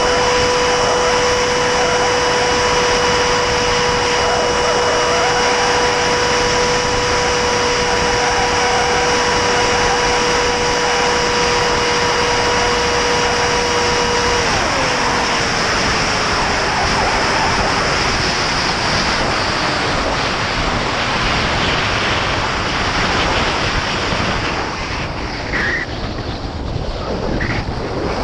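Electric motor and propeller of an 8S Juggernaut FPV flying wing in flight, heard from the onboard camera: a steady high whine over heavy wind rush. About halfway through the steady whine stops and a lower tone slides down in pitch, while the wind rush carries on.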